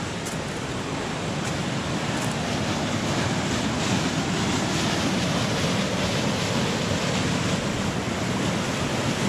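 Mountain creek water rushing steadily over rocks, growing louder over the first few seconds and then holding steady.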